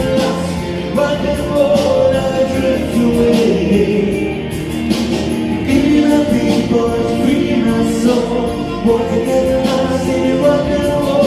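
Music with singing: held, shifting vocal lines over instrumental backing.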